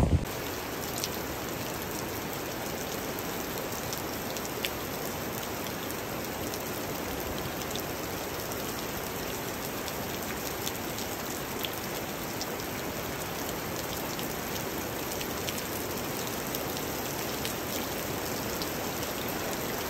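Steady rain falling, with an odd single drop ticking out a little louder now and then.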